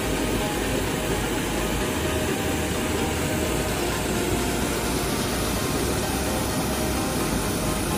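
Fast-flowing stream water rushing and splashing down a rocky channel, a steady, unbroken rush of noise.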